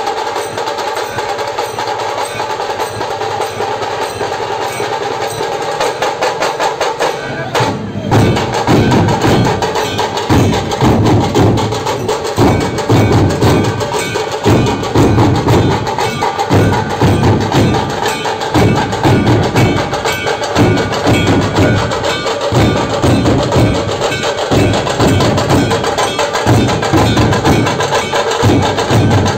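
Dhol drum troupe playing in a procession. It opens with a fast, clattering sharp rhythm, and about eight seconds in the big barrel drums come in with heavy beats in a steady, repeating rhythm.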